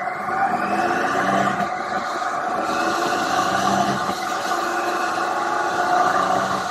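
Triumph Tiger 800 XRt's three-cylinder engine pulling the motorcycle along the road, its pitch rising over the first couple of seconds as it accelerates, then holding steady.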